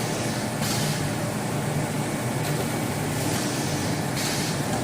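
Tissue paper converting machinery running steadily with a low hum and a constant mechanical noise, with short hissing surges about half a second in, near the middle and near the end.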